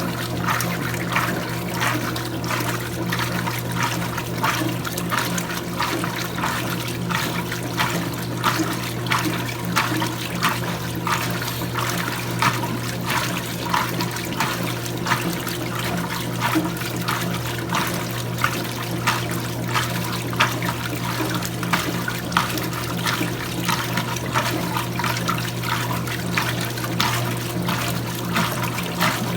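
Electrolux Prosdócimo washing machine running with water in the tub: a steady motor hum under irregular sloshing and splashing of water.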